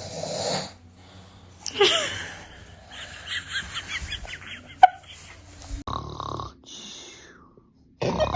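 A man snoring in several uneven snores, some with a rattling flutter, the strongest about two seconds in. A single sharp click about five seconds in.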